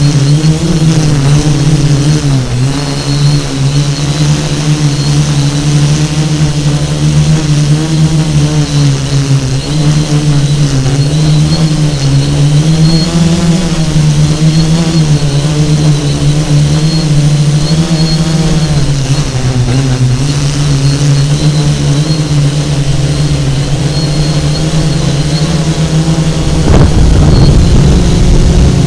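FPV drone's electric motors and propellers buzzing, heard from the onboard camera, the pitch rising and falling as the throttle changes. It gets louder and rougher for the last couple of seconds.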